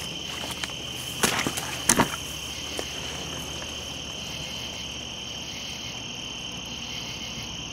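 Steady, high chirring of night insects, likely crickets, with two sharp knocks about one and two seconds in.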